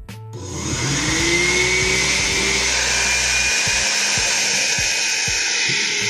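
Oster 14-speed blender motor starting by itself the moment the plug goes in. It spins up with a rising whine over the first second, then runs steadily. Switching on with no button pressed is the keypad fault; the owner suspects that liquid spilled into the keypad has left it stiff.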